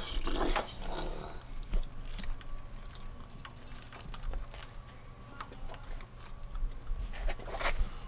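Small plastic clicks, knocks and rustling as a distributor cap is handled and fitted onto the distributor of a non-running engine, with short scraping bursts near the start and near the end.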